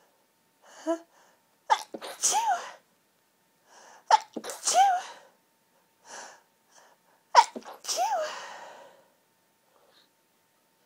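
A woman's high-pitched sneezes from hay fever: three sneezes in a row, each a sharp burst with a squeaky rising-and-falling voice, and a quick breath drawn in before each.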